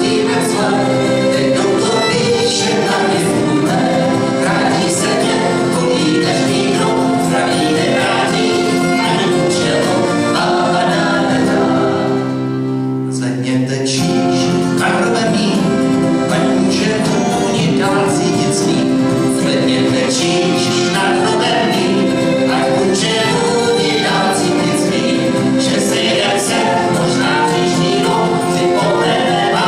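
Live folk band playing accordion, fiddle and acoustic guitar, with several voices singing. About thirteen seconds in the music briefly thins to a held chord, then carries on.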